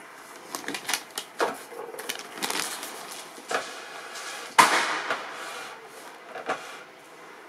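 Glossy paper brochure rustling and crinkling as it is handled and shifted, in irregular crackles, with one sharp, louder bang about four and a half seconds in that dies away over half a second.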